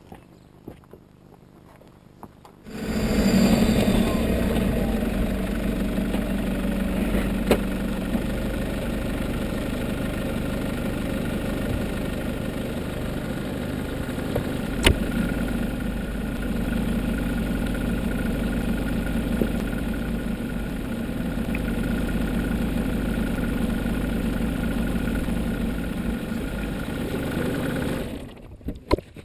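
Nissan Patrol 4x4 engine, heard from beside the front wheel, coming in suddenly about three seconds in with its revs falling away, then idling steadily until it cuts off near the end. Two sharp clicks break through along the way.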